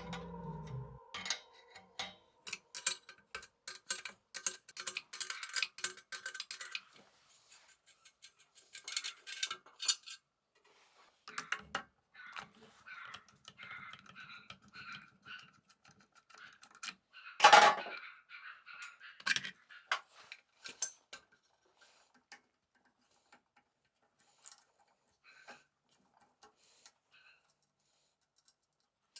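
Small metal parts and tools being handled: scattered clicks and clinks, with one louder knock a little past halfway.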